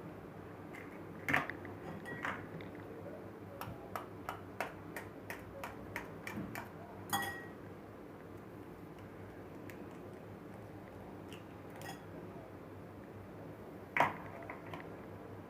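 Eggs being beaten by hand in a bowl: a utensil clicking against the side of the bowl, with a run of quick light taps, about four a second, in the middle and a few louder knocks.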